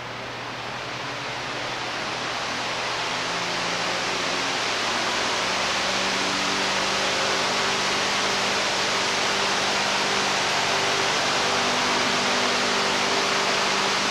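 Harbor Freight 30-inch pedestal shop fan running: a rush of moving air that grows over the first few seconds, then holds steady, with a faint low hum underneath.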